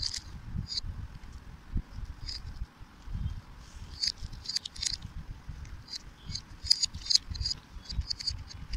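Small plastic beads clicking against each other and a clay bowl in irregular clusters of sharp clicks as they are scooped up by hand and pushed into a rubber balloon, with a low handling rustle underneath.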